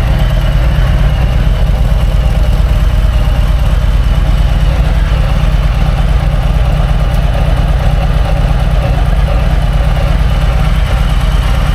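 A steady, loud low rumble of an engine or motor running at idle.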